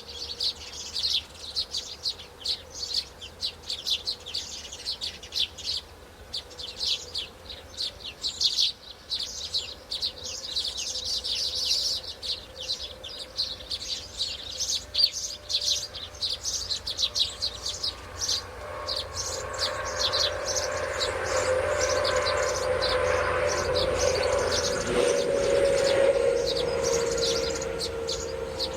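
Small birds chirping in quick, high-pitched runs. In the second half a steady droning hum grows louder under the chirps.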